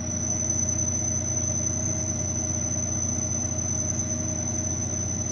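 Parting tool on a Denford Cyclone CNC lathe squealing with one steady high-pitched tone as it cuts into 6082-T6 aluminium without coolant, over the steady hum of the running spindle. The squeal cuts off suddenly near the end.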